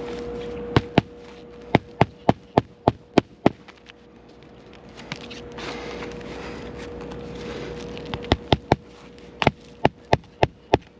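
Hammer striking on an asphalt shingle roof during a shingle repair, in quick runs of sharp blows: two about a second in, about seven in a row soon after, and another run near the end. The blows shake loose the shingles' granules, a sign the old shingles are brittle and being damaged by the repair.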